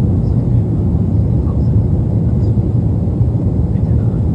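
Jet airliner cabin noise: the engines and rushing air make a steady, loud, low noise with no change in pitch.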